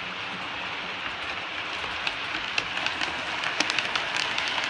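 OO-gauge model train running past on the layout: a steady rolling hiss from the wheels and motor, with sharp clicks from the wheels crossing rail joints. The clicks start about two seconds in and grow more frequent and louder as the Murphy Models Mk2 coaches come close near the end.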